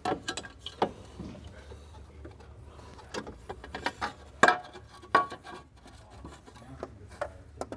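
Metal front cross brace being set into place on the radiator support: a scattering of knocks and clicks against the surrounding parts, with some rubbing. The loudest knocks come about four and a half and five seconds in.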